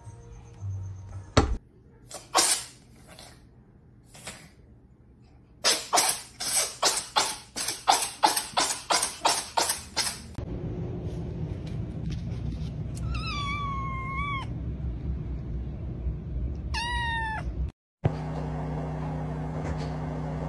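A cat in a fit of coughing and sneezing: about a dozen sharp hacks in quick succession, roughly three a second. Later a cat meows twice.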